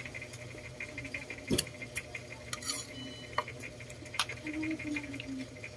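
Eating sounds: chewing with a few sharp, scattered clicks of a spoon against a plate.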